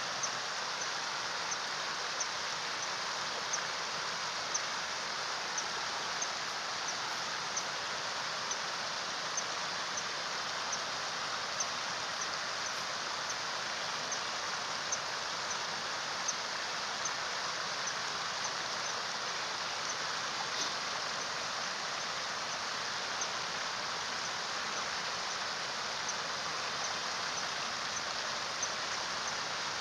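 Steady rushing of running stream water, with faint, short high-pitched ticks repeating about once a second over it.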